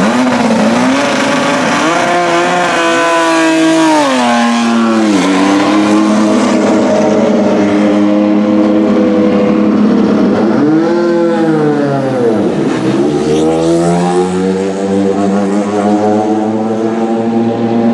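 Racing car engine running at a high, steady pitch, revs climbing and dropping: a rise a couple of seconds in, a fall soon after, then a sharp dip and climb back about two-thirds of the way through.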